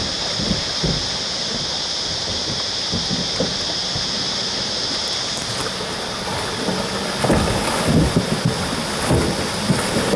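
River water rushing and splashing around a Toyota Hilux 4WD as it wades through a river crossing, over a steady high hiss. From about seven seconds in, irregular low thumps and surges get louder as the vehicle comes closer.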